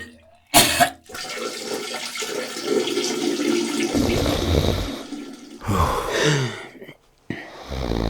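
A person vomiting, with liquid splashing into water and retching sounds.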